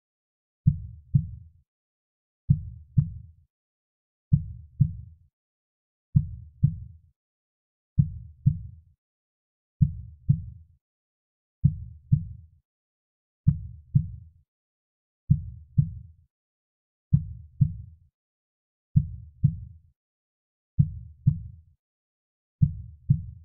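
Soft, slow heartbeat: low double thumps (lub-dub), the two strokes about half a second apart, repeating evenly about every 1.8 seconds with quiet in between. It is a steady womb-style heartbeat loop for lulling babies to sleep.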